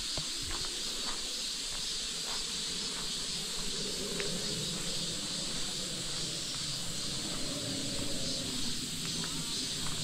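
Footsteps on a gravel forest path for the first couple of seconds, over a steady high hiss of forest ambience.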